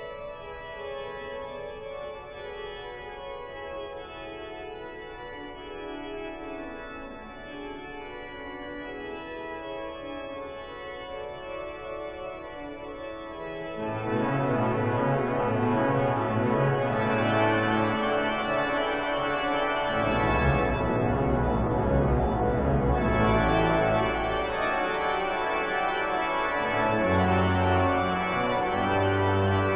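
Pipe organ playing sustained chords, soft for the first half, then swelling suddenly about halfway through to a much louder, fuller sound with deep pedal bass notes joining in.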